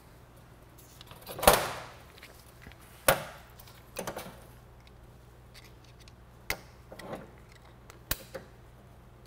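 Sharp knocks and taps from hand work on a car drive shaft's CV joint: a loud knock about a second and a half in, another about three seconds in, then several lighter taps.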